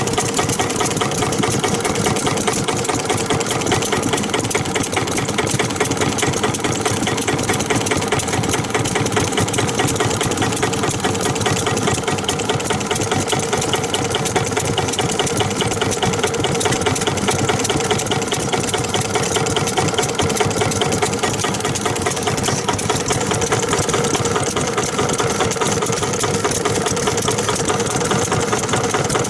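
Vintage Yanmar A3 single-cylinder diesel engine running steadily at an even, rapid beat, with no change in speed.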